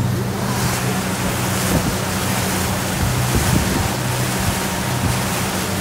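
Engine of a lake shuttle boat running steadily at cruising speed, a low steady hum under the rush of water churning and spraying in the wake, with wind buffeting the microphone.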